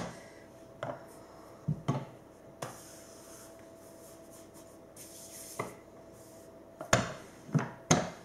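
Light knocks and taps of hands and a rolling pin on a wooden worktop as fondant icing is rolled out and handled, with some soft rubbing between them. Several knocks come close together near the end.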